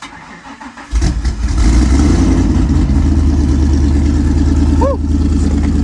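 Ford SVT Lightning pickup's cammed V8 being started: the starter cranks for about a second, then the engine catches and settles into a loud, steady idle.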